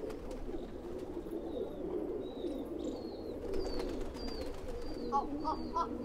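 A flock of domestic pigeons cooing together, many calls overlapping into a continuous low cooing. Short, high chirps from another bird repeat over it, with a few louder calls near the end.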